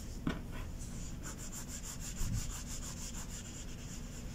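Quick, rhythmic rubbing of a cloth-covered fingertip working acrylic paint into craft foam, about six strokes a second, with a couple of light knocks on the cutting mat.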